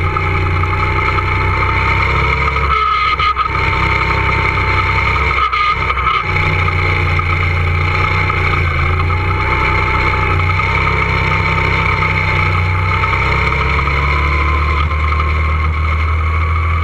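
Two-seater go-kart running at speed, heard from on board: a steady drive rumble with a whine over it. The sound dips briefly twice, about 3 and 5.5 seconds in, and the whine rises slowly in pitch near the end.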